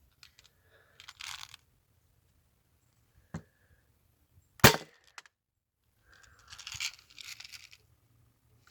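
A single sharp BB gun shot about four and a half seconds in, with a fainter click a second before it and brief rustling on either side.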